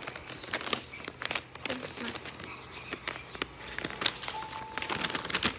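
Brown paper bag being handled and crumpled, a run of irregular crinkles and crackles of paper.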